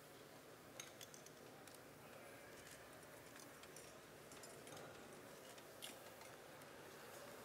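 Near silence: faint room tone with a handful of light clicks of cutlery against a plate.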